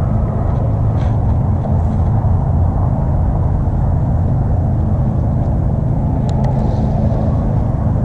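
Farm mowing machine's engine running steadily nearby, a constant low hum.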